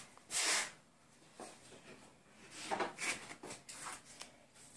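A few short rubbing and scraping noises with small knocks: one louder rub about half a second in and a cluster of them around three seconds in.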